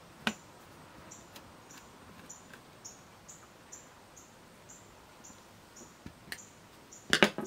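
Small hand screwdriver turning out a screw from a portable cassette player's circuit board, with a few light clicks, then a brief sharp clatter near the end. Behind it a faint high chirp repeats about twice a second.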